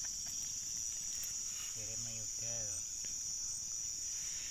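Night insects, crickets among them, calling in one steady, high-pitched drone, with two short spoken syllables about two seconds in.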